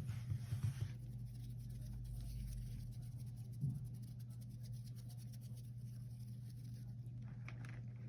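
Rubber gloves handled close to the microphone: a few soft taps and clicks, a single louder click about three and a half seconds in, and faint rustling near the end, over a steady low hum.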